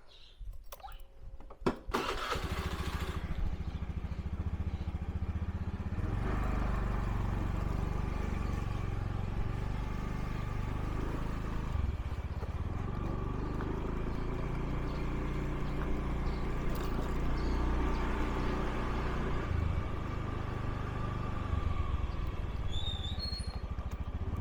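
Motorbike engine starting about two seconds in after a few clicks, then running steadily as the bike rides off. It gets louder around six seconds, and the engine speed shifts up and down a few times.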